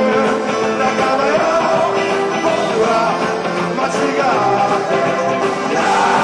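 Live rock band playing, with a man singing over banjo and upright double bass.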